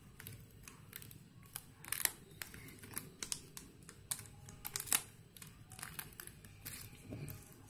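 Irregular small clicks and snaps of pieces being pressed out of a punched 3D puzzle sheet, with the sheet tapping and rubbing as it is handled; the sharpest snaps come about two and five seconds in.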